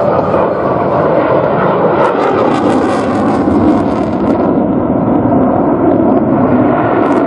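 USAF F-16 fighter jet's engine noise as it flies its aerobatic display: a loud, steady rushing roar with no break.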